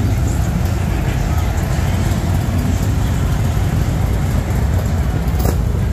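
Motorcycle engines running with a steady, low rumble, with voices of a crowd underneath; a short, sharp click about five and a half seconds in.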